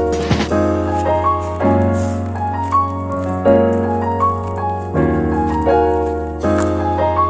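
Background music played on piano or electric keyboard over a steady sustained bass, with a new chord every second or two and short melodic notes on top.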